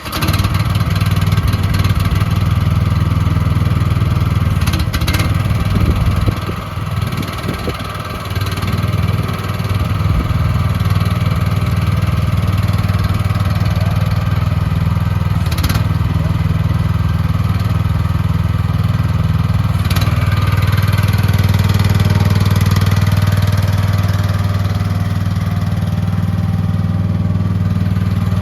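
Small gasoline engine of an AGT QH12R mini excavator catching and running while still cold. It stumbles and drops in level for a couple of seconds about six seconds in, then settles to a steady run that grows slightly louder a little past twenty seconds.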